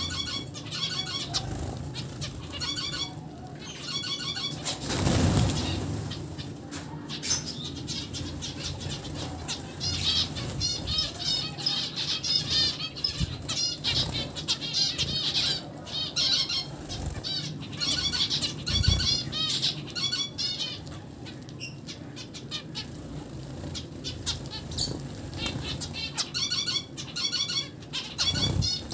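Flock of zebra finches calling nonstop: a chatter of short, high, rapidly repeated beeping calls, with wing flutters among them and a louder rush of wings about five seconds in.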